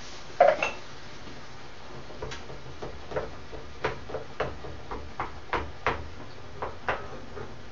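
A wooden spoon stirring tomato sauce in a frying pan, knocking against the pan in a string of irregular light taps, after a single clunk about half a second in. A low steady hum runs underneath.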